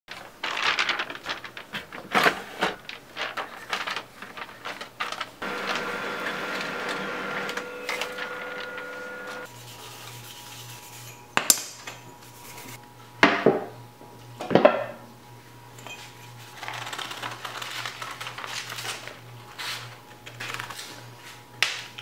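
Thin aluminum disc blanks clinking against each other and the workbench and being scrubbed with a green abrasive scouring pad: scattered light metallic clicks, a few louder clinks, and stretches of rubbing. A low steady hum joins about halfway in.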